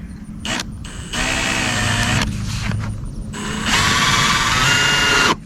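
Power drill driving an exterior deck screw into drainage culvert pipe, running in two bursts, about a second and then about two seconds, with the motor's pitch shifting under load. The second burst is louder.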